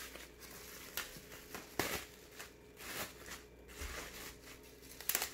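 Plastic bubble wrap being unwrapped by hand, crinkling and rustling, with a few sharp crackles, the loudest about five seconds in.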